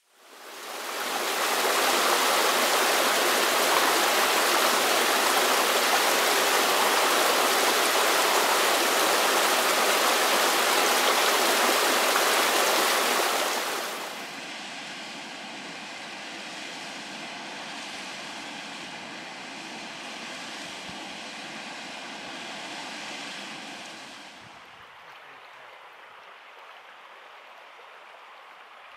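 Rushing mountain stream: loud, even water noise that fades in at the start, drops abruptly to a quieter run of water about 14 seconds in, and falls quieter again near the end.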